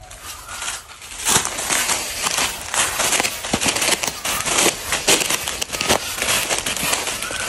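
Footsteps in rubber boots crunching through a thick layer of dry fallen rubber-tree leaves. A steady run of crackles starts about a second in.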